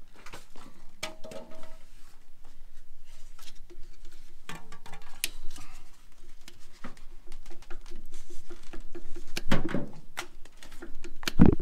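Pliers clicking and scraping against a trailer hub's greasy spindle nut and cotter pin as the pin is worked loose, in short irregular metal taps. Two louder knocks come near the end.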